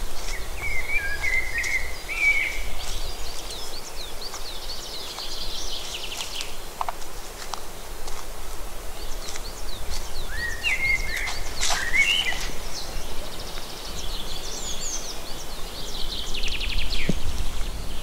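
Several woodland songbirds singing over one another: warbled phrases, high thin trills and a fast rattling trill near the end. A steady low rumble runs underneath.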